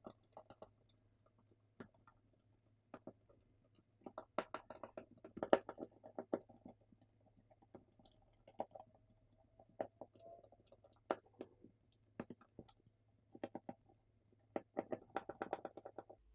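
Small Phillips screwdriver unscrewing tiny screws from a smartphone's internal plastic cover: scattered light clicks and scratchy ticks, coming in clusters about four seconds in and again near the end.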